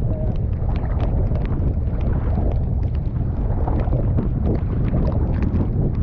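Storm wind buffeting the microphone in a steady low rumble, over choppy waves slapping and splashing against a canoe's hull, with many small sharp splashes throughout.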